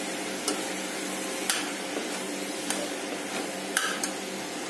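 A spoon stirring thick carrot and coconut halva in a pressure cooker pot. Scattered clicks of the spoon against the pot, about one a second, sound over a steady low hiss.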